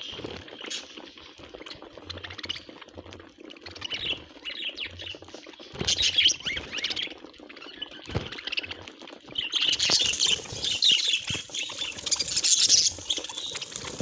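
A flock of budgerigars chattering and chirping while they feed, with many small clicks as beaks peck at seed; the chirping becomes louder and busier about ten seconds in.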